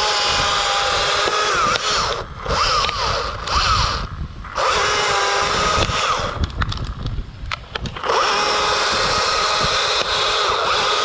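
Chainsaw running and revving, its pitch rising and falling as it cuts. It drops back several times, most briefly about two and four seconds in and longer around seven seconds in, then runs at full speed again.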